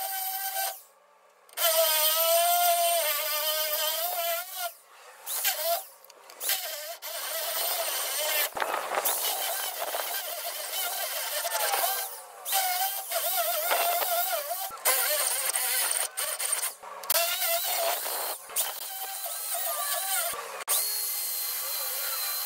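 Corded hammer drill boring out ball joint rivets, heard sped up tenfold: a high, wavering whine that stops and starts again many times in short breaks.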